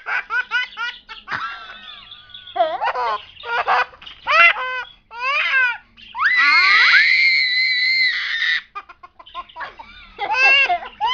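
Baby laughing in short giggling bursts, then letting out one long, high-pitched scream about six seconds in, lasting over two seconds, before giggling again near the end.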